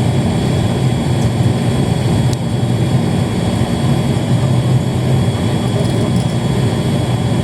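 Turboprop airliner's engines and propellers droning steadily, heard inside the cabin, with a faint high whine over the low drone.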